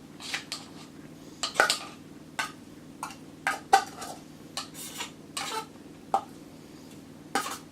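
Irregular clinks and knocks of cutlery against dishes as food is handled, about a dozen sharp strikes, some briefly ringing, over a faint low steady hum.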